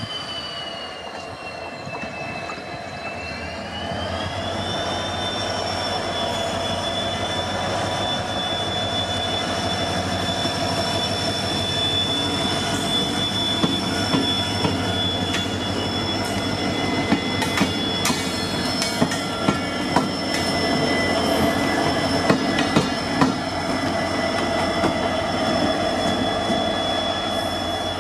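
WDP4D diesel-electric locomotive's EMD two-stroke V16 engine running, with a high whine that dips, rises about four seconds in and then holds steady over a low hum. Scattered sharp clicks come through the middle and later part.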